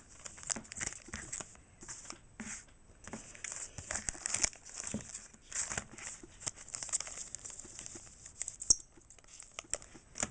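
Foil wrapper of a Pokémon trading card booster pack crinkling and being torn open, an irregular crackly rustle with one sharp crack near the end.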